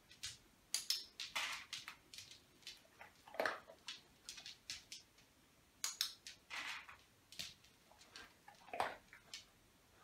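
Irregular string of short, sharp clicks and light clinks, a few louder ones about three and a half and nine seconds in: a hand-held dog-training clicker marking paw touches, and treats handled in a small bowl on the floor.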